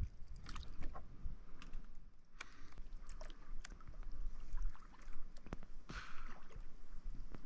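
Scattered light knocks and clicks of a paddle and fishing tackle being handled aboard a kayak, with light water sloshing against the hull a couple of times.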